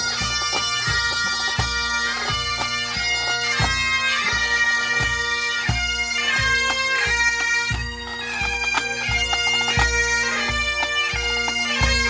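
Highland pipe band playing on the march: bagpipes with a steady drone under the chanter melody, and a bass drum beating time about every two-thirds of a second.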